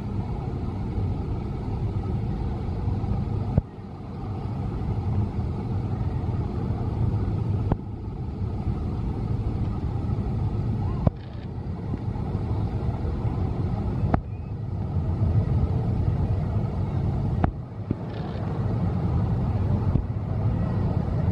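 Zamperla motorbike coaster train running along its steel track, a steady low rumble. The sound breaks off and restarts every three to four seconds.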